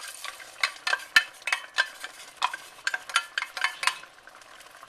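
Spoon knocking and scraping in a soup pot as frozen corn is added and stirred in: a quick, irregular run of clinks over a faint sizzle. It stops about four seconds in.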